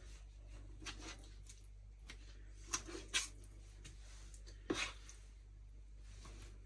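A few short knife taps and knocks on a plastic cutting board as raw fish fillets are cut and handled, the clearest around three seconds in and just before five seconds, with quiet between them.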